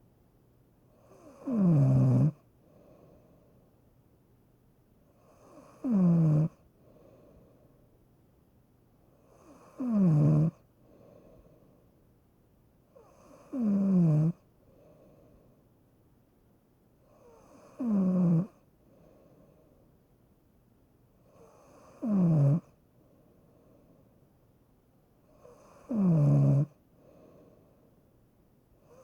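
Snoring: seven loud snores about four seconds apart, each one dropping in pitch, with quiet breathing between them.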